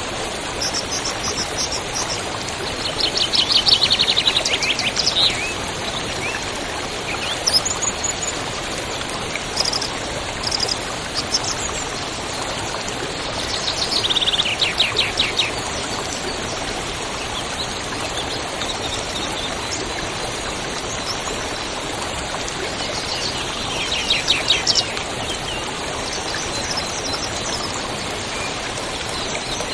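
A river rushing steadily, with a songbird singing the same rapid trill three times, about ten seconds apart, each trill falling in pitch. Other birds give short, high chirps in between.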